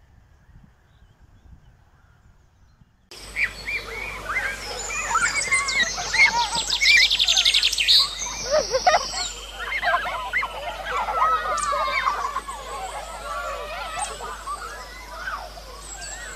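Faint until about three seconds in, then a lively outdoor park: many overlapping shrill calls and shouts of children playing, mixed with birds chirping, with a fast rattling trill high up for a couple of seconds.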